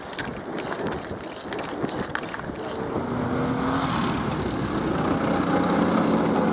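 Footsteps on a gravel road, then a motor vehicle's engine that grows steadily louder from about three seconds in, as if the vehicle is approaching.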